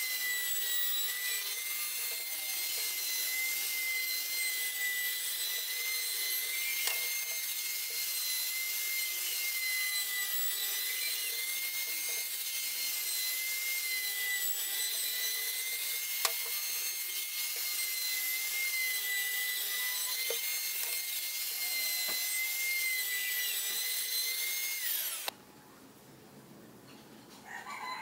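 Handheld trim router running while it cuts along the edges of 9 mm MDF strips: a steady high whine over a hiss of cutting. It cuts off suddenly near the end.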